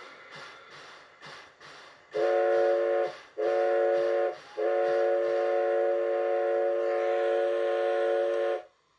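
Steam locomotive puffing at a steady beat, then its whistle sounding a chord of several tones in three blasts: two short and one long held for about four seconds, then cut off.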